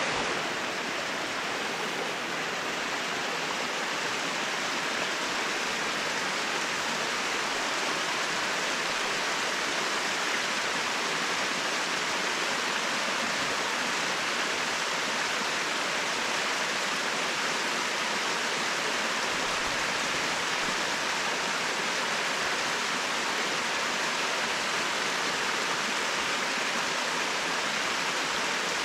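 Waterfall: falling water splashing in a steady, unbroken rush.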